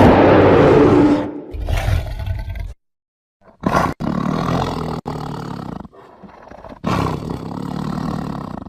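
Rajasaurus dinosaur roar sound effect: a loud roar, then a second shorter one, and after a brief silence a string of growling roars broken by abrupt cuts.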